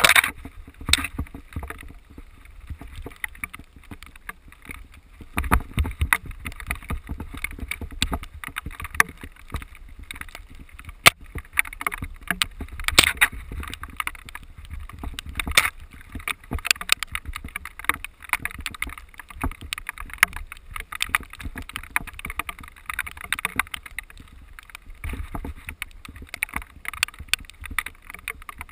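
Mountain bike rolling fast down a dirt and stony trail: tyres crunching over gravel and the bike rattling, with frequent sharp clicks and knocks. A low rumble of wind on the microphone runs underneath.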